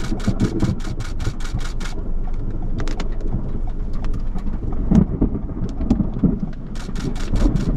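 Thunder rumbling from a supercell thunderstorm, with rain falling on the vehicle and a louder peak of thunder about five seconds in. A rapid, regular ticking, about five a second, stops about two seconds in and starts again near the end.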